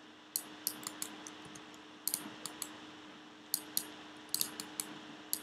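Sharp, irregular clicks of a computer mouse and keyboard, coming singly and in small clusters, over a faint steady hum.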